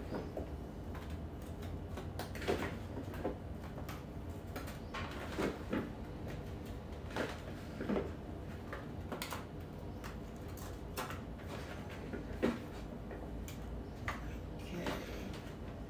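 Cut raw sweet potato pieces being picked out of a plastic bowl and laid into an aluminium foil baking pan: irregular light knocks and clatter, a few a second at the busiest, over a low steady hum.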